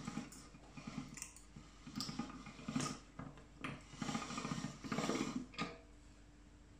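Pasta machine running a sheet of ramen dough through its rollers, rattling and clicking in uneven bursts; it stops about a second before the end.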